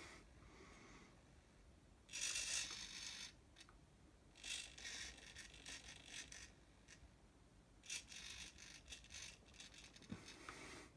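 Small hobby servo motors in a 3D-printed robot arm whirring in several short bursts, the loudest about two seconds in, as the arm moves and an accelerometer-controlled servo keeps the end section level.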